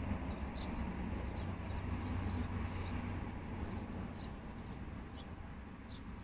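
Many short, high chirps of small birds scattered throughout, over a low steady rumble heard from inside a car.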